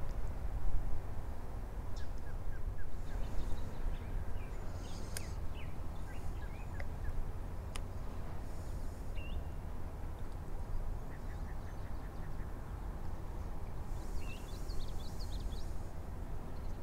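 Birds chirping in scattered short calls over a steady low rumble, with a single faint click about eight seconds in.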